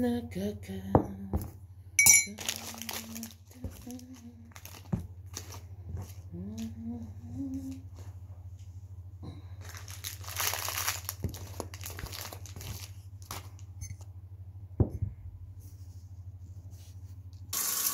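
Household items being handled, with crinkling and clicking, over a steady low hum. A kitchen tap turns on near the end and runs.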